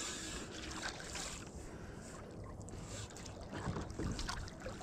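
Faint splashing of a hooked coho salmon thrashing at the water's surface near the boat, a little louder near the end.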